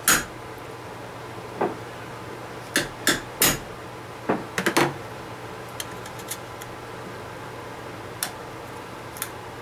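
Small steel punch clicking and tapping against the die-cast metal baseplate of a toy van, working the drilled-out rivet loose to separate the base from the body. About eight or nine irregular sharp metal clicks: the loudest comes at the very start, a cluster follows in the first five seconds, and a few faint ticks come later.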